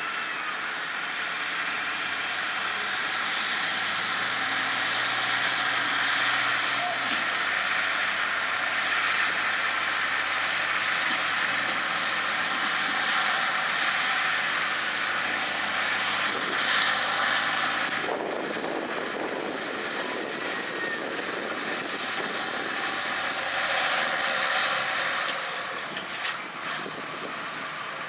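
Allis-Chalmers farm tractor's diesel engine running hard under heavy load while pulling a weight-transfer sled, a loud steady drone. The sound changes character about two-thirds of the way through and eases off near the end.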